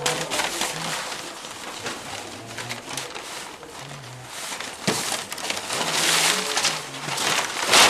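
Dry woodblock-printed paper pages being riffled, shuffled and laid down by hand as they are collated into books, a steady rustling with sharp crackles. About six seconds in a bundle of sheets is lifted and swung with a louder rustling swish, and a sharp rustle comes near the end.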